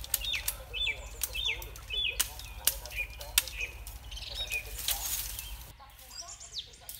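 Machete blade knocking and chopping against a bamboo pole as its side shoots are trimmed off, sharp irregular strikes that stop near the end. A bird repeats a short high chirp over the first half.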